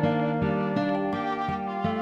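Background music: a melodic instrumental tune with notes changing about three times a second.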